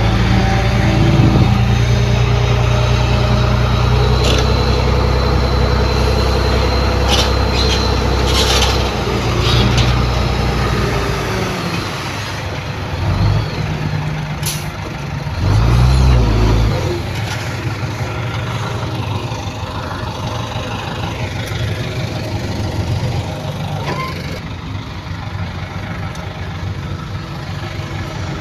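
Heavy diesel earthmoving machinery running hard, with a few sharp metallic clanks in the first nine seconds or so. About eleven seconds in the engine note drops, swells briefly twice, then settles to a quieter steady running.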